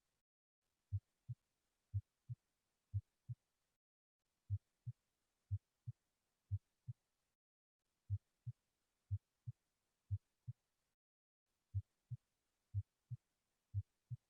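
Recorded heart sounds from auscultation: a steady lub-dub about once a second, the first sound louder than the second, in runs of four beats broken by short silent gaps.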